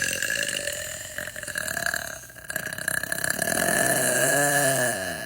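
A woman belching at length, with a short dip about two seconds in; near the end the belch takes on a voiced pitch that rises and then falls before it stops.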